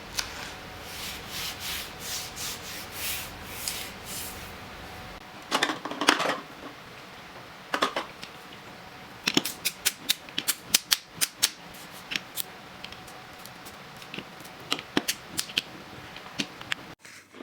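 Items and packaging being handled on a work table: rustling for the first few seconds, a louder rustle about six seconds in, then a quick run of sharp clicks and taps.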